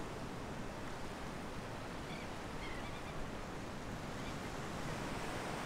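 Steady surf and wind noise on the beach, with a few faint bird calls about two to three seconds in.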